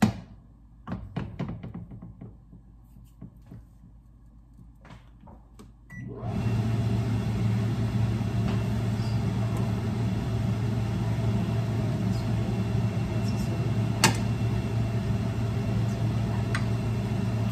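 A few light knocks of utensils, then a short beep about six seconds in as a kitchen range hood fan switches on and runs steadily with a low motor hum.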